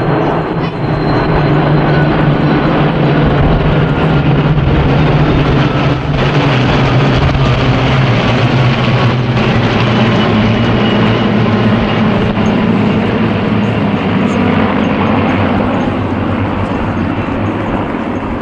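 Piston engines of a large formation of Spitfire and Hurricane fighters running together: loud and steady, with many overlapping engine notes whose pitch drifts slightly upward in the second half.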